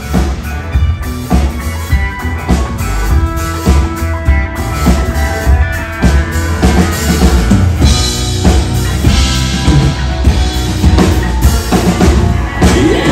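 Live band playing: a drum kit keeping a steady beat under electric guitars and keyboards.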